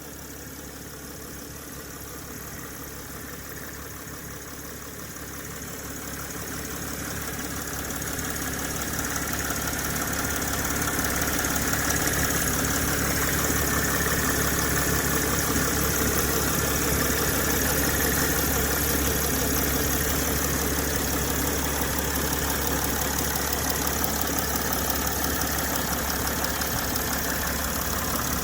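Mercedes ML320 (W164) engine idling, then revved up gradually from about a fifth of the way in and held at higher revs, with the deep grumbling noise from the front near the radiator that comes on as the revs rise; its cause is unknown to the owner and the mechanics who have checked it.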